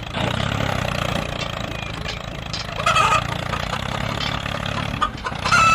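A small engine running steadily, with short, high, honk-like calls about three seconds in and again near the end.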